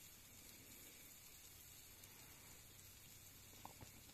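Near silence: a faint, steady hiss, with a couple of faint ticks near the end.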